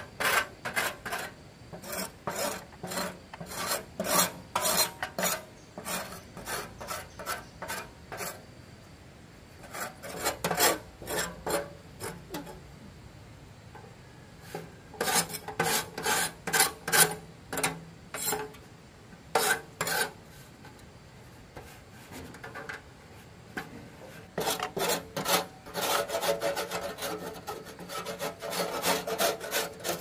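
Rapid rasping strokes, as of hand filing or scraping, about three a second, in runs broken by short pauses.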